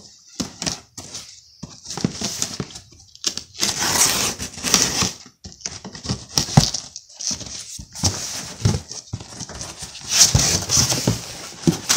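Cardboard shipping box being handled and its flaps pulled open by hand: irregular scraping and rustling of cardboard with short knocks, and longer stretches of rustling about four seconds in and again near the end.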